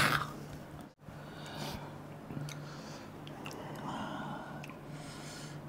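A loud shout trails off at the very start, then faint breathing and a few soft clicks of hands handling food, over a low steady hum.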